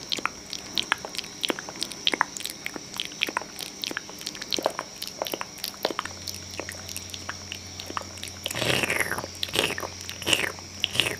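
Close-miked ASMR mouth sounds: rapid, irregular wet clicks and smacks, with a few longer squelching sweeps near the end. A faint steady high tone runs underneath.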